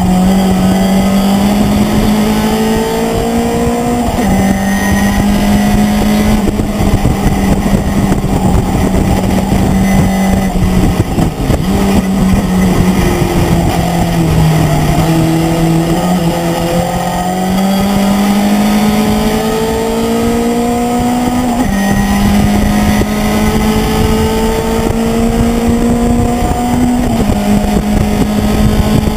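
Race pickup truck's V8 engine pulling hard at high revs, its note stepping between gears. It drops away briefly about halfway through, then climbs again, with steady wind and road noise underneath.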